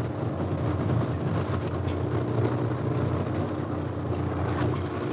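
Fishing boat's engine running at idle: a steady low drone.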